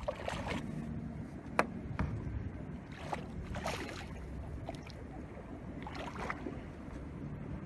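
A boat's motor running low and steady, with a few sharp splashes and knocks as a hooked striped bass is brought alongside the boat and grabbed.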